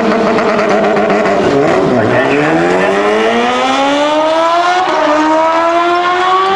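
Sport motorcycles launching down a drag strip. The engines hold high revs, dip about two seconds in, then climb steadily through the gears, with a gear change about five seconds in.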